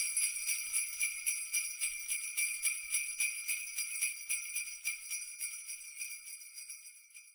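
Sleigh bells jingling in a fast, even shaking rhythm, starting suddenly and fading out gradually toward the end.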